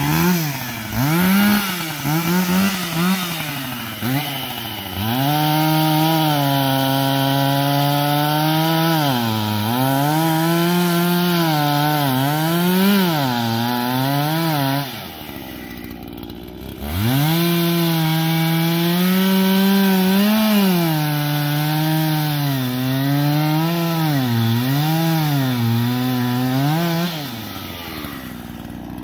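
Chainsaw cutting through the trunk of a small standing tree, its engine revving high and repeatedly dipping in pitch as the chain bites into the wood. It eases back to idle about halfway through, cuts again, and drops to idle near the end.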